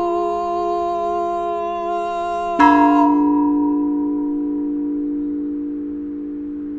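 Tall metal tubes of an outdoor chime sculpture ringing. Several overlapping tones carry over at first, then one tube is struck about two and a half seconds in, and its tones ring on and slowly fade.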